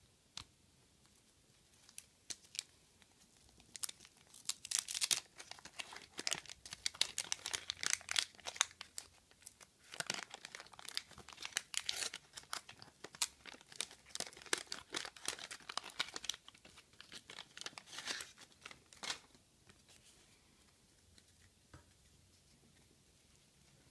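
A waxed-paper trading-card pack wrapper being torn open and crinkled by hand: a few single crackles, then dense dry crackling from about four seconds in until about nineteen seconds.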